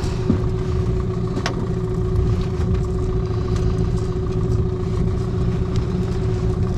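Small boat outboard motor running steadily at low, trolling speed, an even hum that does not change. A single sharp click comes about one and a half seconds in.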